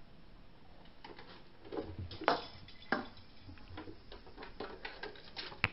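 Faint scattered taps and clicks of kittens' paws and claws on a bunk-bed slide, with a few sharper knocks about two and three seconds in and a sharp click near the end.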